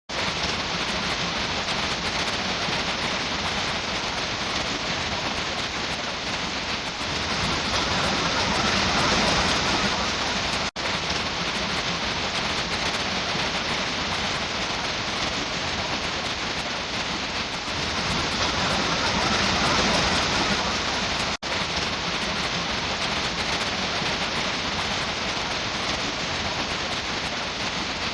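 Heavy rain falling, a steady dense hiss that cuts out for an instant twice.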